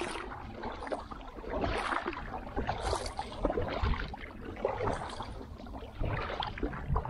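Double-bladed paddle strokes from an inflatable kayak, the blades dipping and splashing into the lake about once a second on alternating sides. A low wind rumble sits on the microphone underneath.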